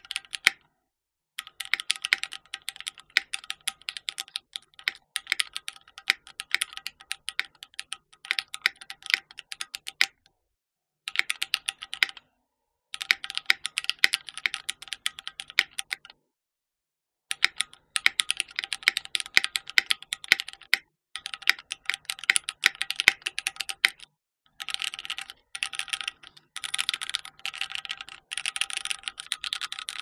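Keychron Q1 aluminium 75% mechanical keyboard with stock Gateron Phantom Red linear switches being typed on quickly, in runs of keystrokes broken by several short pauses. The board is unmodded, which the owner calls hollow and pingy.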